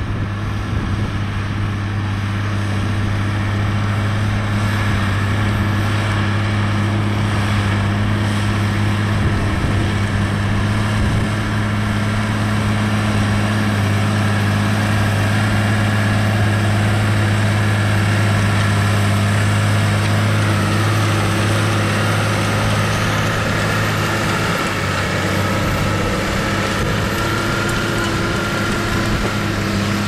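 New Holland T7040 tractor's six-cylinder diesel engine running steadily under load while pulling a plough: a deep, even drone with a faint whine above it that shifts slightly in pitch near the end.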